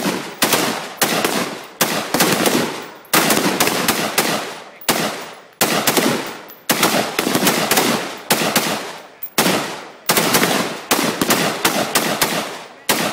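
Rifle gunfire from an M16-pattern rifle, fired rapidly in short strings of two to four shots, about three a second. Each string is followed by a short echo before the next.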